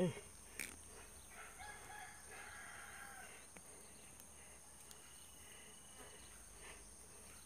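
A rooster crows faintly in the distance about a second and a half in, one call lasting about a second and a half. A short falling-pitch sound is heard right at the start.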